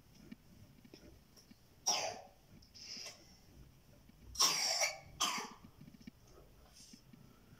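A person coughing: one sharp cough about two seconds in, a softer one a second later, then the loudest two coughs close together a little past halfway.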